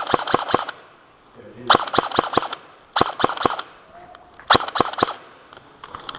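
Airsoft rifles firing four short rapid-fire bursts of sharp cracks, each burst under a second long.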